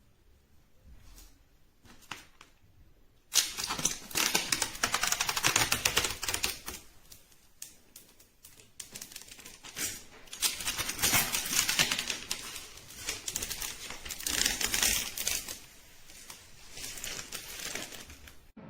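Rapid, dense clicking and clattering in several bursts, beginning suddenly about three seconds in after a few faint clicks.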